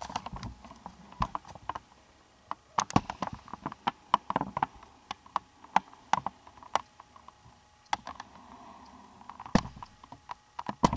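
Scattered, irregular sharp clicks and knocks at uneven intervals, some loud, with low room noise between them.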